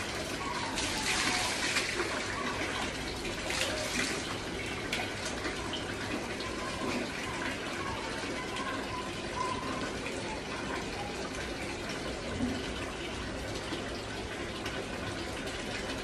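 Water poured from a plastic mug splashing over a bather and onto a tiled floor, twice in the first few seconds, over the steady sound of a tap running into a bucket.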